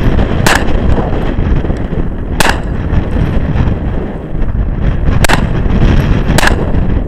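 Four shots from a Smith & Wesson SD9VE 9mm pistol, irregularly spaced, over strong wind noise on the microphone.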